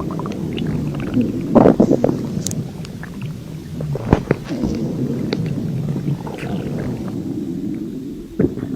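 Human stomach growling, heard close up: a continuous low gurgling rumble with squeaks and small pops, with louder gurgles about two seconds in and again about four seconds in, dying down near the end.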